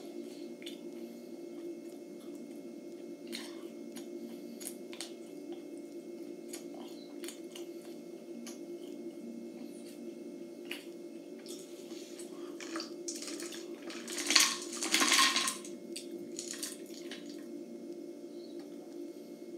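Plastic jar handled in the hands: scattered light clicks and taps, with a louder rustling, crackling burst about fourteen seconds in, over a steady low hum.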